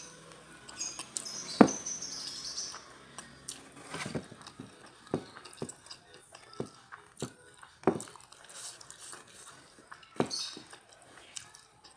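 Close-miked eating sounds: a mouthful of jengkol and rice chewed with closed lips while fingers work rice on a plate. Scattered sharp clicks and smacks, the loudest about a second and a half in.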